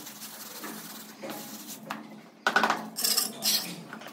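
Hand tools clinking and scraping on hard surfaces during ceramic tile laying. A loud burst of scraping and clattering comes about two and a half seconds in and lasts about a second.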